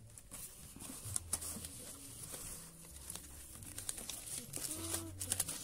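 Cardboard packaging being handled around a cordless impact wrench: scattered light taps, rustles and crinkles as the cardboard sleeve and insert are moved by hand.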